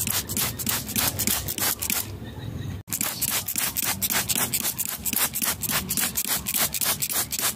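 Hand trigger spray bottle squeezed over and over, each pull a short spray hiss, about four a second, misting liquid fertilizer onto lime-tree leaves. There is a brief quieter gap about two seconds in, then an abrupt cut before the spraying resumes.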